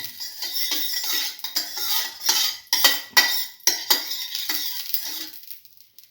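A metal utensil scraping and clinking against a frying pan in quick repeated strokes, spreading the heated oil around the pan. The strokes stop shortly before the end.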